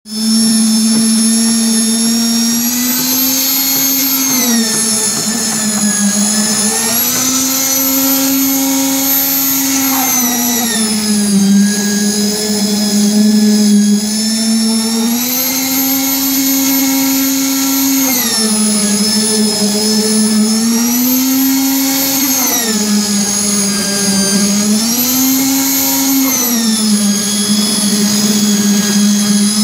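Concrete needle vibrator's motor running at high speed as a steady whine, its pitch dipping and rising again every few seconds as the load on it changes.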